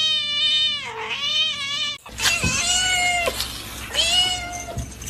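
Cats meowing: a long, drawn-out meow that dips in pitch and carries on for about two seconds, then two shorter meows of about a second each.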